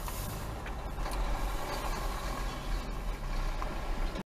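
Car running at low speed, heard from inside the cabin: a steady low engine and road rumble that cuts off suddenly near the end.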